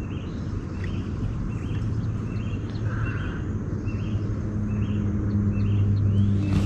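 A boat's motor running low and steady, a second, higher hum joining about four seconds in, while a bird calls in short repeated chirps.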